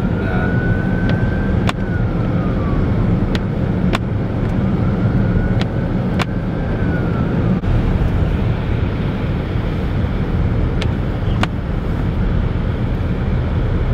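Steady low rumble of a car's engine and tyres on a wet, slushy highway, heard from inside the cabin, with a few sharp ticks and a faint whine that rises and falls twice.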